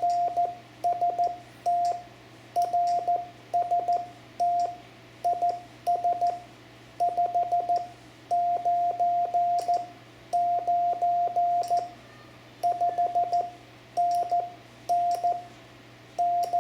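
Morse code sent slowly by hand: a single steady tone near 700 Hz keyed on and off in dots and dashes, a CW operator thanking the other station for answering his CQ.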